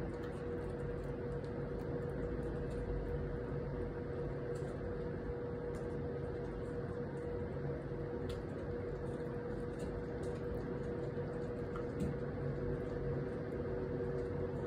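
Steady mechanical hum with a constant mid-pitched tone over a low rushing noise, with a few faint ticks and rustles.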